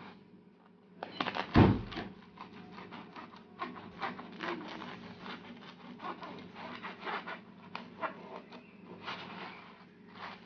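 A knife sawing through a baked bazlama pizza on a wooden cutting board: irregular crackling of the crisp crust with taps of the blade on the board, and a heavy thump about a second and a half in.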